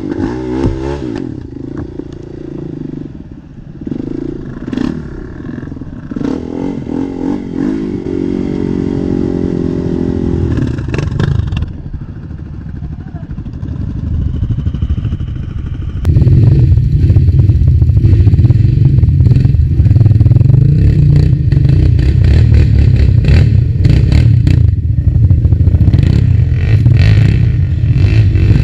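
Quad bike (ATV) engine revving up and down, its pitch rising and falling. About halfway through it switches abruptly to a louder, steady low engine run.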